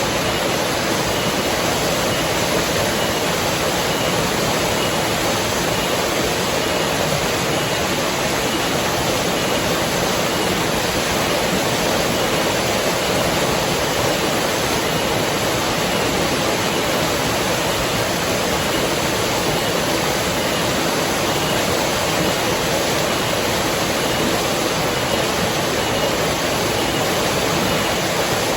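River water flowing and rushing steadily, an even, unbroken wash of water noise.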